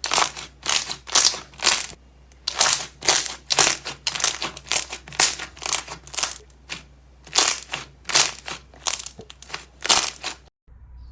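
Slime being squeezed and pressed by hand: a quick series of short squishes, roughly two a second, that stops abruptly just before the end.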